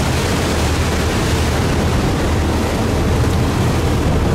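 Steady low rumble of a river passenger boat's engines under way, mixed with wind buffeting the microphone.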